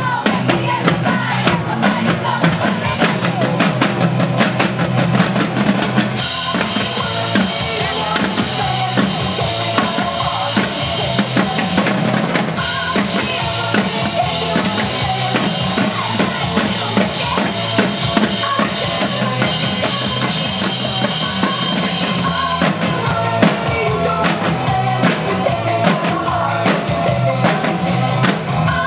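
Drumline of snare drums on stands playing fast, tight rhythmic patterns in unison. About six seconds in, cymbal crashes join and fill the sound with a bright wash through much of the middle, over a bass line underneath.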